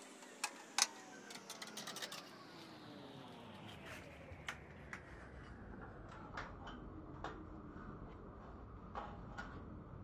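Faint, scattered clicks and taps of wire terminals and metal parts being handled inside a microwave oven's sheet-metal chassis, with a quick run of clicks in the first two seconds and single ones after.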